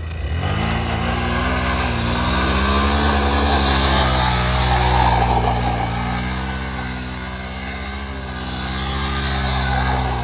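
Hero Xpulse 200 4V's single-cylinder engine running at held revs, its pitch rising and easing gently every few seconds.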